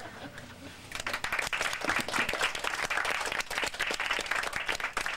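Live audience breaking into applause about a second in, many people clapping at once.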